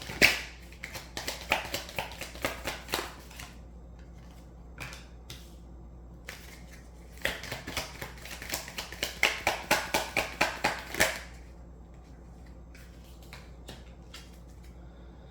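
A deck of reading cards being shuffled by hand: two runs of quick flicking, one in the first three seconds and another from about seven to eleven seconds in, with a few single snaps of cards between.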